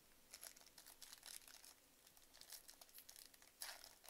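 Foil wrapper of a 2021 Bowman baseball card pack crinkling as it is handled, a run of short faint crackles with the loudest one near the end.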